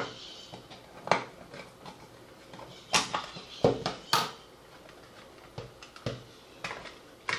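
Plastic case of a Kaiweets KM601 digital multimeter being pried open with a thin metal tool: a series of sharp clicks and snaps as the case halves come apart, the loudest about three to four seconds in.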